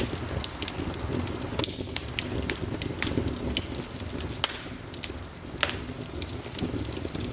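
Wood fire crackling: frequent sharp pops and snaps, several a second and a few louder ones, over a low steady rumble of the flames.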